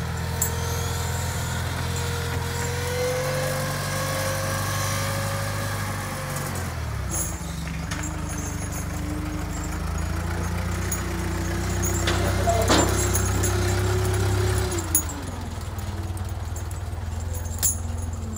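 1974 Massey Ferguson MF230 tractor's four-cylinder gas engine running as it is driven, the engine speed dropping about a third of the way in, holding, then dropping again near the end. A brief sharp knock is heard about two-thirds through.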